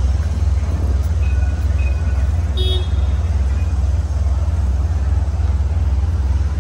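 City street ambience at night: a steady low rumble, with a single short, high-pitched toot about two and a half seconds in and a few faint thin tones before it.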